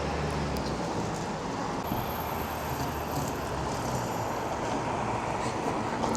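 Steady road traffic noise, a continuous rush of passing vehicles.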